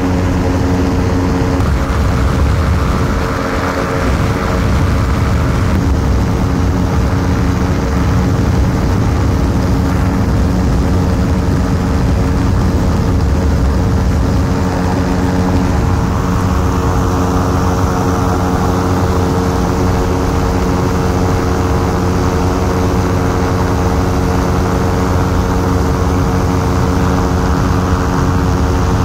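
Ultralight aircraft engine and propeller running steadily at constant speed, with a steady rushing noise over the engine note.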